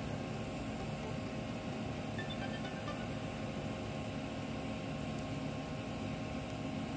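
Steady hiss and hum of a TIG welding set while a stationary DC arc burns on a stainless steel plate at high current, with a few faint held tones over it.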